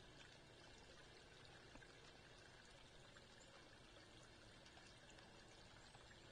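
Near silence: a faint, steady outdoor hiss with a few tiny scattered ticks.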